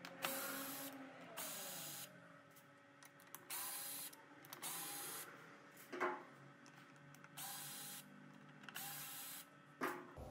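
Cordless drill/driver backing screws out of the blower motor's plastic housing, running in about six short bursts of roughly half a second each, with a couple of sharp clicks between them.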